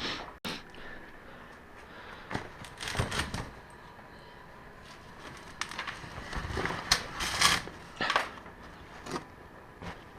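Scattered knocks, clicks and scrapes of hard objects being handled as supports are set under a motorcycle's hanging front brake calipers, busiest about three seconds in and again from about six to eight seconds in.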